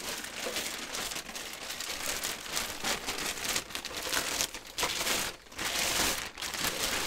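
Thin plastic bag crinkling and rustling as it is handled around a computer keyboard unit.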